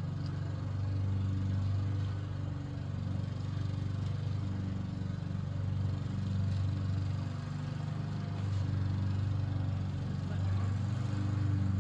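A steady low mechanical hum, like a motor running, swelling and easing a little in level.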